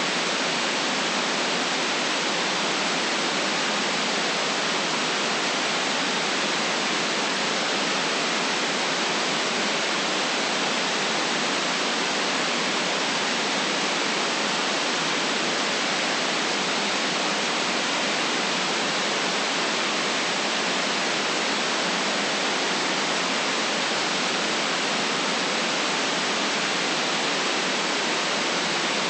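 Steady white noise: an even, unchanging hiss with the deepest bass cut away.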